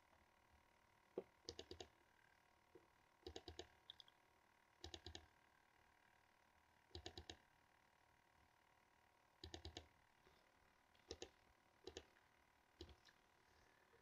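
Faint computer mouse clicks, mostly quick double-clicks in small groups every second or two, over near silence.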